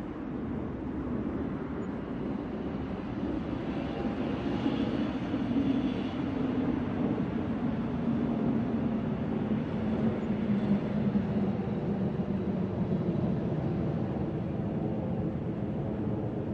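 New York City night street ambience: a steady low traffic rumble with a vehicle passing, its hum swelling in the middle and slowly falling in pitch.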